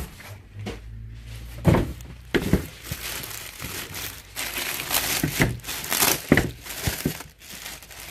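Thin clear plastic bag crinkling and rustling as hands handle it and pull it open, with a couple of sharp knocks in the first few seconds.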